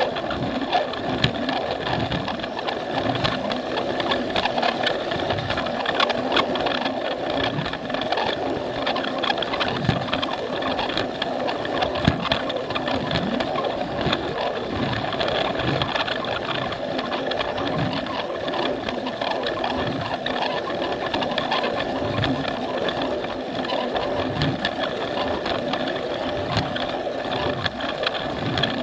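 Plarail toy train's small battery electric motor and plastic gears running steadily with a constant whine, the wheels giving regular low knocks as they roll over the plastic track joints.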